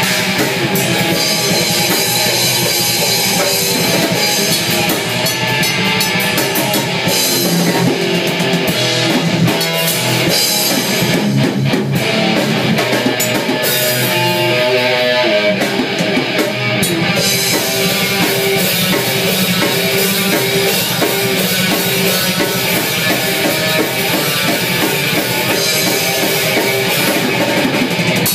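Electric guitar and drum kit playing heavy rock together, loud and continuous.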